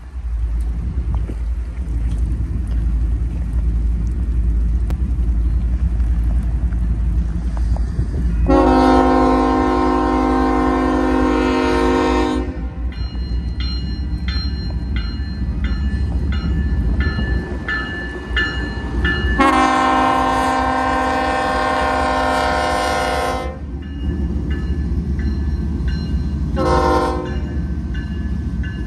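BNSF diesel freight locomotives approaching with a steady low engine rumble while the lead unit sounds its multi-chime air horn: two long blasts of about four seconds each, then a short one near the end, another long blast following. The pattern is the standard long-long-short-long grade-crossing signal.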